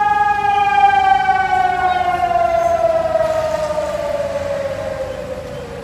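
A mining company's warning siren, sounded in a test, winding down. Its single steady tone slides slowly lower and fades.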